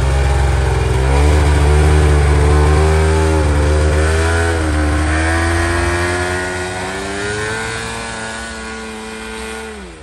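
Polaris RMK snowmobile's two-stroke engine revving as the sled pulls away, its pitch rising and falling with the throttle. It fades over the last few seconds as the sled rides off into the distance.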